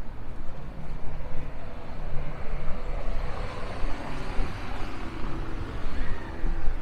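Busy city street ambience: a steady, unsteady-edged low rumble of traffic with a general wash of street noise.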